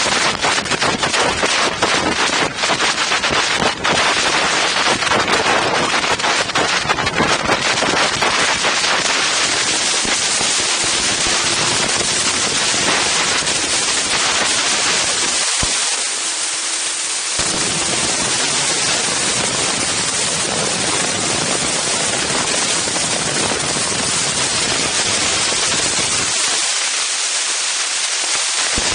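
Strong wind buffeting the Insta360 One X's built-in microphones. For the first several seconds it crackles and pops, then it settles into a steady, loud rushing hiss.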